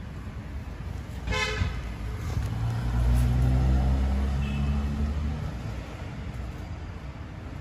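Street traffic: a car horn toots once, briefly, about a second in, then a motor vehicle passes close by, its low engine rumble swelling and fading away.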